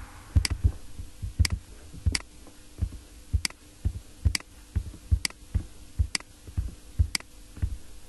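A computer mouse clicking, one short sharp click about every second at a slightly uneven pace, as a PDF is scrolled through page by page.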